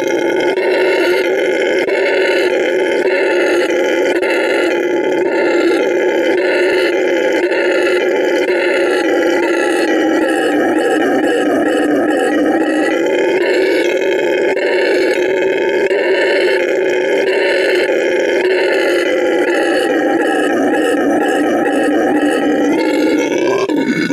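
Howler monkey howling: a loud, deep roar that goes on without a break and fades out at the very end.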